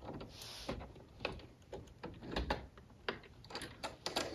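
Irregular small clicks and taps of a bobbin being lifted out of a sewing machine's drop-in bobbin case and handled between the fingers.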